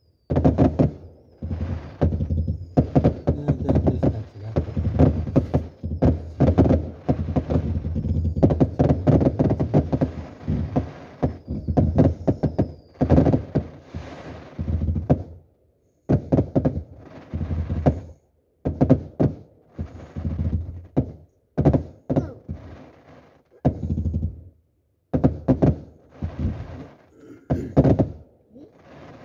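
Fireworks display: a rapid barrage of aerial shell bursts and crackle for the first half, then separate booms about once a second.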